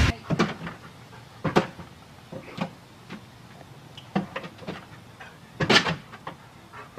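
A dog pawing and knocking at a door to be let in. It makes a series of separate, irregular knocks, with the loudest cluster about two-thirds of the way through.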